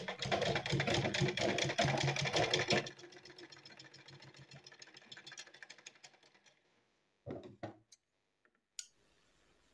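Sewing machine stitching, a fast, even run of needle strokes for about three seconds, then fainter ticking for a few more seconds before it stops. A couple of soft handling sounds come near the end.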